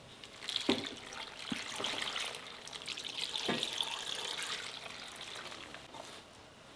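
Blended seasoning broth poured from a blender jug into a hot-pot pan, splashing over raw beef, mushrooms and bean sprouts. The pour starts about half a second in, with a few soft thuds along the way, and tapers off near the end.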